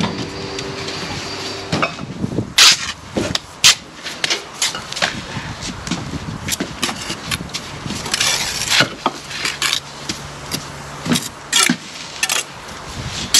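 Brick trowel scraping mortar and tapping bricks into place on a wall course: sharp clicks and knocks with short scrapes at irregular intervals. A steady engine hum fades out over the first two seconds.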